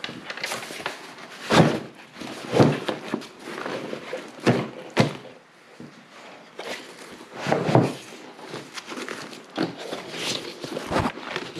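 Bags being pushed into a Pelican V700 Vault hard plastic case and secured with Velcro straps: a string of rustles and thunks against the case, with about seven sharper knocks.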